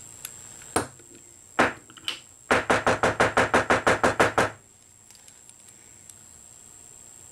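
Fly-tying hair stacker tapped on the bench to even the tips of a bundle of deer hair: a few single knocks, then a quick run of about a dozen taps, about seven a second, stopping about four and a half seconds in.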